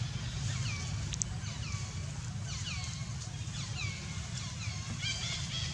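Short high animal calls, each sliding down in pitch, repeated roughly once a second over a steady low rumble.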